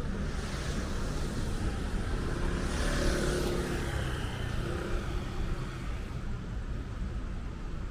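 Street traffic: a steady low rumble, with a car passing about three seconds in.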